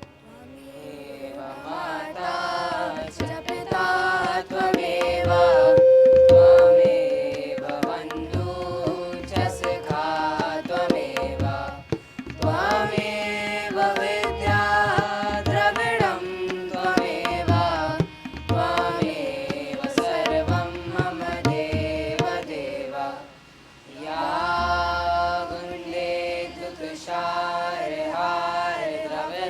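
Sung Sanskrit devotional prayer to Saraswati with tabla accompaniment, long held notes in phrases with short breaks between lines.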